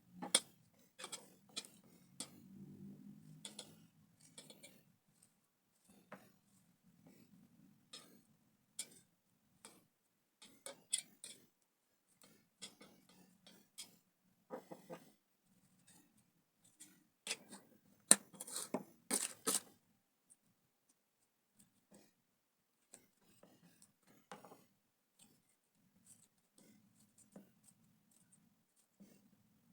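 Kitchen knife slicing through raw vegetables held in the hand: faint, irregular crisp cuts and small clicks, coming in a quicker, louder run a little past the middle.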